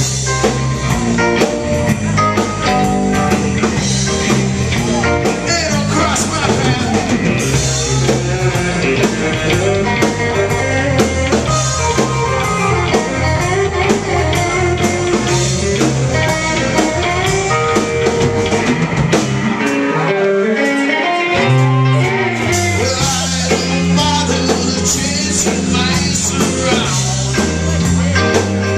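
Live rock band playing: distorted electric guitars, drum kit and a male singer, loud and full. About twenty seconds in the low end drops out for a moment before the full band comes back in.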